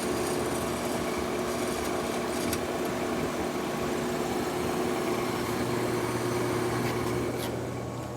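1953 Fedders Weather Bureau window air conditioner running: a steady rush of fan air over a constant motor hum, getting quieter just before the end.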